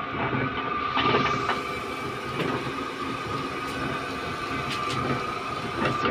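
Electric paper-cutting guillotine machine running with a steady hum and a constant high tone, with a few knocks as a stack of notebooks is slid and knocked into place on its steel bed, the loudest about a second in.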